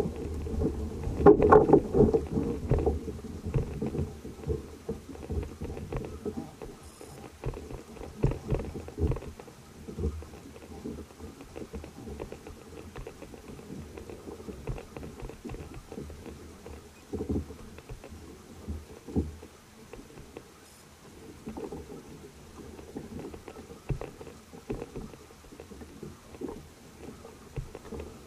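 Irregular thumps and sloshing on a kayak, heard muffled, mostly deep and dull, with the loudest knocking about one to three seconds in and scattered smaller knocks after.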